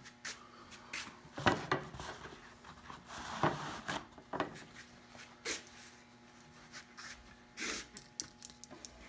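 Handling noises at a workbench: scattered light knocks and clicks of objects being picked up and set down, and a rag rubbing briefly about three seconds in, with a short swish near the end.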